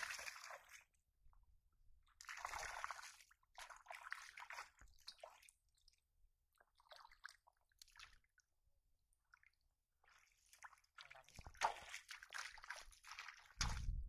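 Shallow water splashing and sloshing in irregular bursts as hands grab a thrashing fish in the water, with quiet gaps between, busiest near the end.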